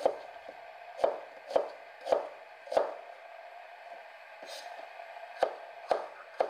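Chef's knife slicing an onion into thick pieces on a plastic cutting board: a sharp knock of the blade on the board with each cut, about one every half second. Five cuts, a pause of a couple of seconds, then three more near the end.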